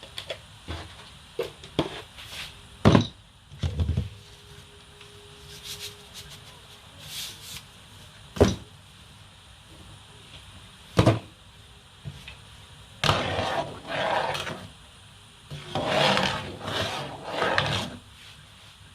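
Kitchen utensils knocking against cookware a few separate times, then two spells of rough scraping or rubbing, as of a utensil worked against a pot or pan.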